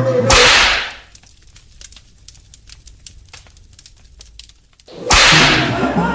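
Title-card sound effects: a sudden loud whoosh-hit that dies away within about half a second, then faint scattered crackles for about four seconds, then a second loud whoosh-hit about five seconds in, after which music comes back in.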